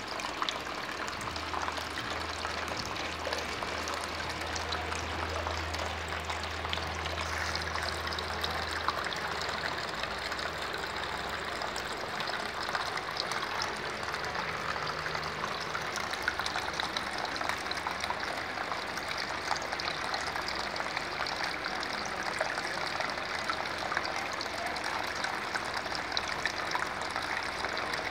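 Water swirling and splashing in a homemade tabletop vortex fountain made from a plastic kitchen container: a steady watery hiss with faint droplet ticks. A low hum sounds through the first several seconds, then fades.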